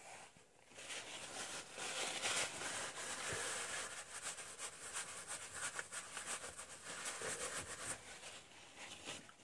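A rag rubbing and rustling against the rear brake caliper and piston as it is wiped clean: a dense, scratchy wiping noise that starts about a second in and stops near the end.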